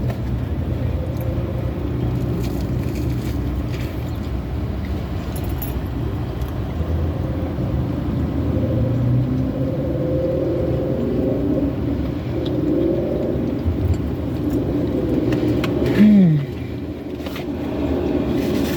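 Steady low rumble of a car engine idling. About 16 seconds in a short falling tone sounds, and the rumble then settles a little quieter.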